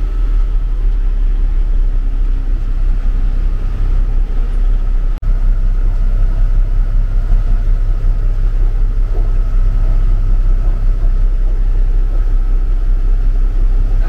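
Freightliner truck's diesel engine running steadily under way, heard from inside the cab: a heavy low rumble with a thin steady whine above it. The sound drops out for an instant about five seconds in.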